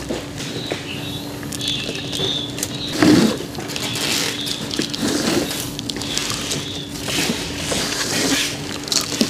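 Handfuls of loose peat-based potting mix being scooped and poured into a gap between two plastic flowerpots, an irregular dry rustling and pattering of falling soil, loudest about three seconds in.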